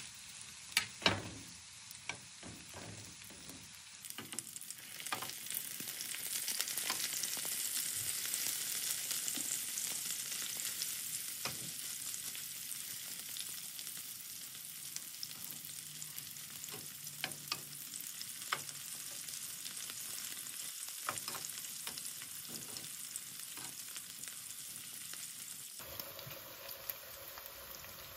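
Food frying in a hot pan, a steady sizzle with scattered clicks and taps, likely a utensil stirring against the pan.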